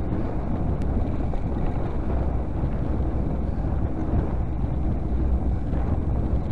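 Wind rushing over a camera microphone on a moving bicycle, with no windshield on the mic, giving a steady low rumble.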